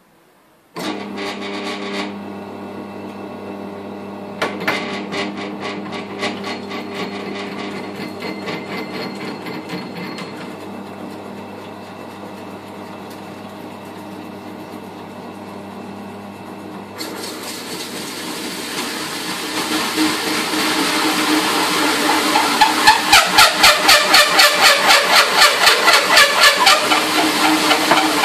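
Drill press motor starting about a second in and running at low speed while a bimetal hole saw cuts into the panel, with a rhythmic chatter. In the second half the cutting grows much louder and harsher into a rapid, regular pounding: the saw is vibrating and catching because the pilot hole and the saw's guide bit were not aligned.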